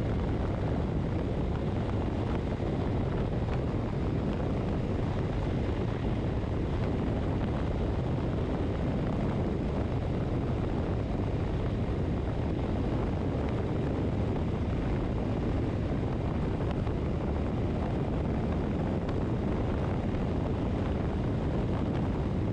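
Motorcycle cruising at a steady speed: engine and road noise under a constant rush of wind over the microphone.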